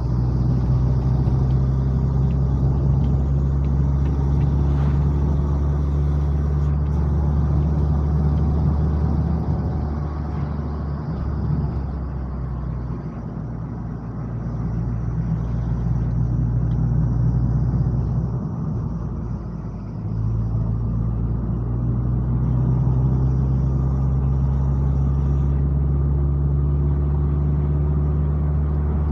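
Car driving uphill: a steady low engine drone with road noise. It eases off about eleven seconds in, stays lower for a few seconds, dips again just before twenty seconds, then returns to its earlier level.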